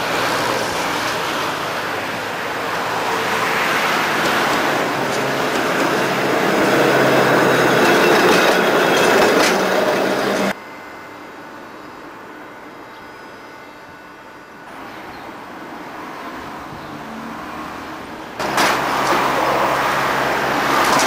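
Blackpool tram passing close on ballasted track, its wheels running on the rails and the noise building as it nears, then cut off suddenly about halfway through. After a quieter stretch, a louder steady noise with a low hum comes in near the end.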